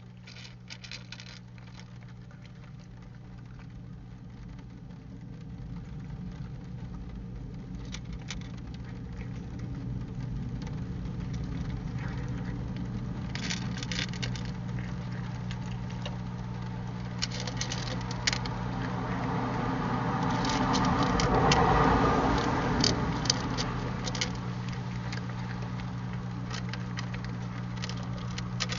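Trail-camera audio: a steady low electrical hum under scattered ticks and crackles. A broad rushing sound slowly swells, peaks about three-quarters of the way through, then fades, like a vehicle passing by.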